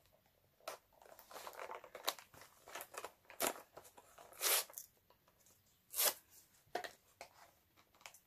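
Cardboard box of Warheads sour chewy candy being torn and handled, a string of short rustles and tears with two louder rips about four and a half and six seconds in.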